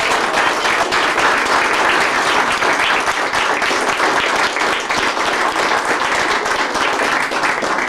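A small group of people applauding, a steady patter of many hands clapping.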